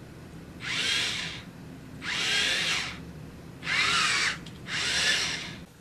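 A small electric motor whirring in four short bursts, each about a second long, its whine bending up and down in pitch.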